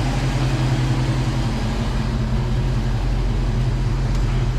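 1989 Ford Mustang's 5.0-litre V8 idling steadily with the A/C compressor running.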